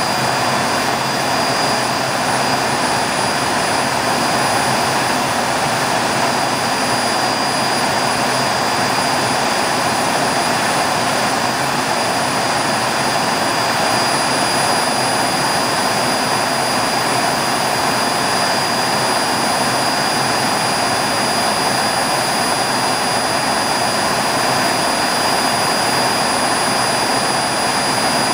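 Boeing 502 gas turbine on a jet go-kart running steadily through its new exhaust nozzle: a continuous rush of jet exhaust with a high whine held at one pitch, no throttle changes.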